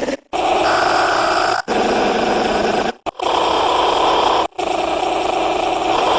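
Tiger growling, four separate growls of a second or so each, every one starting and stopping abruptly.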